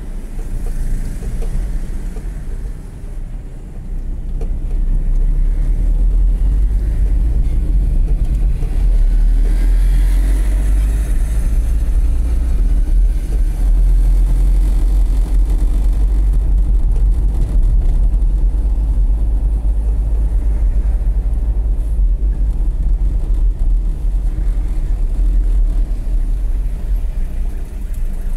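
A car driving along a city road, heard from inside: a steady low rumble of engine and road noise that grows louder about four seconds in.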